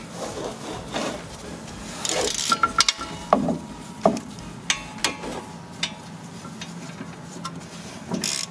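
Ratchet wrench with an 18 mm socket unscrewing the already-loosened rear brake caliper bracket bolts: short runs of pawl clicking and scattered metal clicks and clinks.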